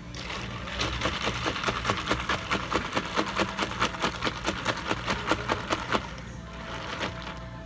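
Ice rattling and clicking against the sides of a tall plastic cup as a green grape ade is stirred with a long stirrer, a quick regular clatter of about five clicks a second that stops about six seconds in.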